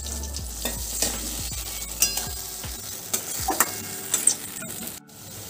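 Metal spatula stirring and scraping in a metal wok as spice paste and powders are worked into raw banana frying in mustard oil. The oil sizzles steadily, and the spatula clicks sharply against the pan a few times.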